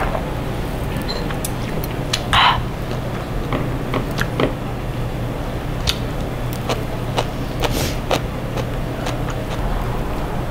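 Thin-sliced pork belly and kimchi sizzling on a cast-iron lid grill, with chopsticks and tableware clicking and chewing sounds. A sharp knock at the very start and a short breathy burst about two seconds in.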